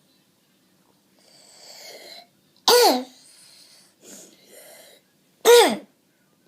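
A child with croup giving two short, barking coughs about three seconds apart, each dropping in pitch and each preceded by a noisy in-breath; this barking cough is the typical sign of croup.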